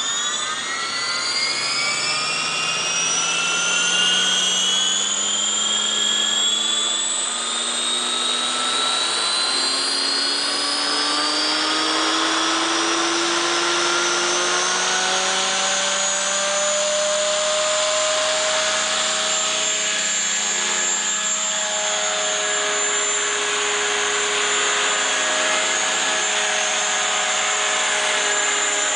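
Align T-Rex 500 electric RC helicopter spooling up: a high whine that rises steeply in pitch over the first several seconds, then levels off and holds steady at flying speed.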